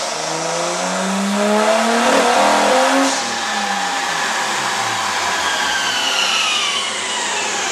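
R33 Nissan Skyline GTS-t's turbocharged RB25DET straight-six being revved: the engine note climbs for about three seconds, then falls slowly back toward idle, with a higher whine falling along with it. The car has a misfire, which was traced to the wrong spark plugs being fitted.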